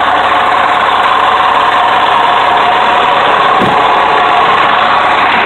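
Ford L9000's Caterpillar 3176 inline-six diesel engine idling steadily.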